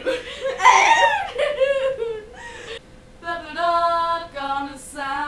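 Girls' giggling and breathy laughter, then about three seconds in they start singing together unaccompanied, with long held notes.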